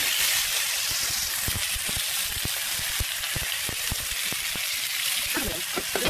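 Hairtail fish pieces frying in hot oil in a pan: a steady sizzle with constant crackling pops.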